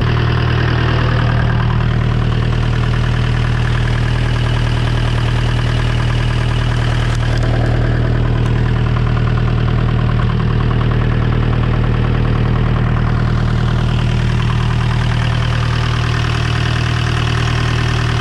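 Three-cylinder inboard marine diesel engine running steadily, heard up close through its opened compartment hatch.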